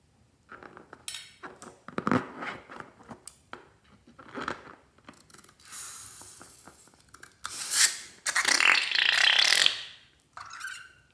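Slime and rubber balloon being squeezed and worked by hand: irregular wet squelching and rubbery scraping, louder and denser for a couple of seconds near the end, followed by a short rising squeak.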